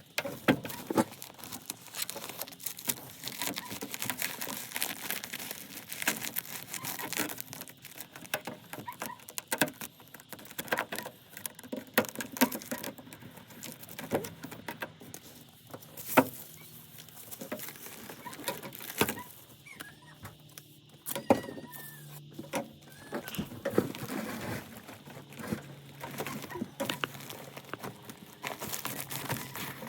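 Hands working with ductwork materials: rustling and crinkling, with scattered knocks and clicks throughout.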